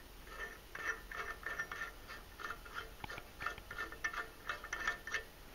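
Faint, irregular light metallic ticks, several a second, as a clutch's retaining nut is spun by hand onto its threaded shaft while the spring is held compressed in a compressor tool.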